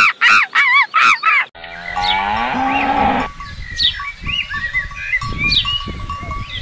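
A quick run of short pitched animal calls cuts off, then a Holstein cow moos once, a long call of about a second and a half. After the moo, a bell tinkles repeatedly and birds chirp over a noisy pasture background.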